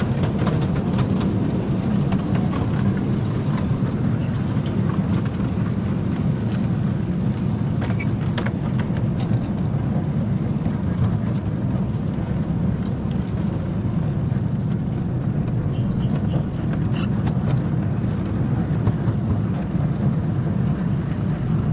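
Ride-on miniature railway train running along the track, heard from a riding car: a steady low rumble of wheels on rail, with scattered clicks and knocks now and then.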